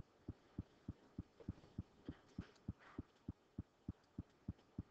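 Faint, evenly spaced low thuds, about three a second.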